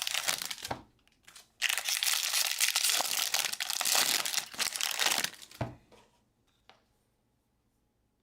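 Trading-card pack wrappers crinkling and being torn open, in a short spell and then a longer one of about four seconds, ending in a soft thud; then only a couple of faint ticks.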